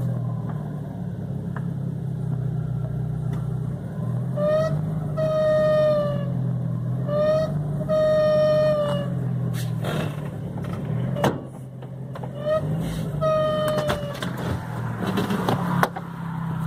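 Volkswagen Gol G4 engine idling steadily, with a high-pitched squeal that comes and goes in short bursts of half a second to a second, about seven times. This is the owner's strange engine noise, heard whether the car is standing or moving, and still there after the belts were replaced. A few sharp clicks come about ten to eleven seconds in.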